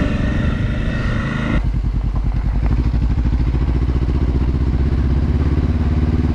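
Adventure motorcycle engine running while riding a dirt trail. About a second and a half in, the sound changes abruptly to a lower, evenly pulsing engine note.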